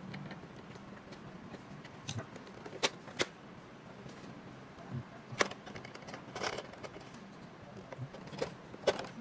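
Sharp plastic clicks and knocks as the bottom cover of a BYINTEK K45 projector is unclipped and lifted off and the housing handled: single taps spread out, the loudest a close pair about three seconds in, over a low steady hum.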